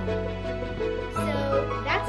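Background music with long held notes over a steady bass; the chord changes about a second in.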